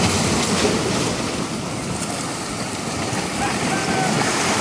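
Steady rushing wash of surf against shoreline rocks, with wind buffeting the microphone.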